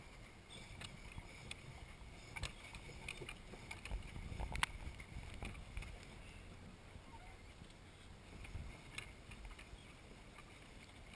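Faint water lapping and sloshing against the plastic hull of a pedal boat, with scattered light clicks and knocks and a low rumble.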